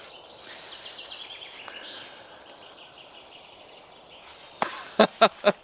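A songbird singing one phrase of short high notes that step downward in pitch over about two seconds. Near the end come four or five short, sharp, louder sounds in quick succession.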